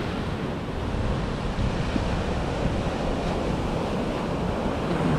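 Surf on the beach and wind buffeting the microphone, a steady rushing noise with no distinct events.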